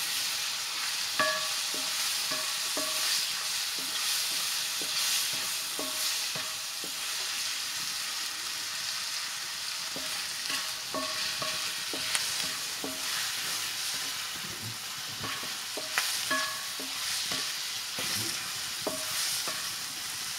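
Red mushrooms sizzling as they fry in a metal wok over a wood fire, stirred with a wooden spatula. The spatula scrapes and knocks against the pan at irregular intervals, and each knock makes the wok ring briefly.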